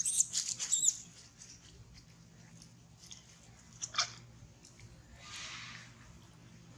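Macaques giving a few short, shrill squeaks in the first second, followed by a single sharp click and a short rustle of dry leaves.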